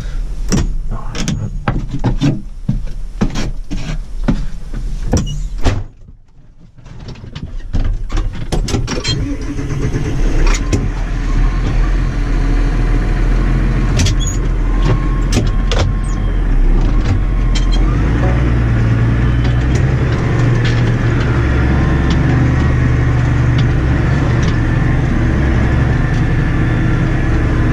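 Massey Ferguson 6480 tractor's diesel engine heard from inside the cab: a run of knocks and clatters for the first few seconds, a brief lull, then the engine picks up and runs steadily as the tractor drives off, getting louder and more even about two-thirds of the way through.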